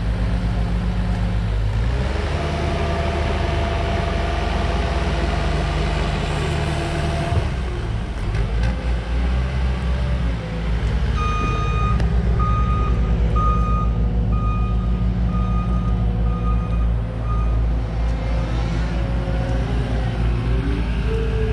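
Diesel engine of a Cat mini excavator running steadily under work. About halfway through, a backup alarm beeps at about two beeps a second for some six seconds, then stops.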